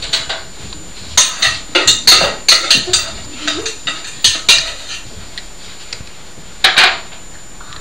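Dishes and cutlery clinking and clattering at a kitchen sink: a quick run of sharp knocks for about four seconds, then another short clatter near the end.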